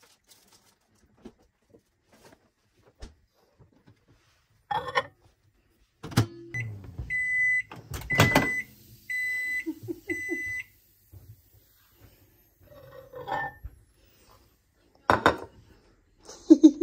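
Microwave oven beeping: a run of high beeps around the middle, some short and some held for about half a second, among separate knocks and clunks.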